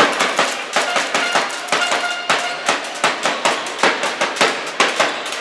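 Handball game sounds in an echoing sports hall: a dense, uneven run of sharp knocks and claps, several a second, with a few short high squeaks.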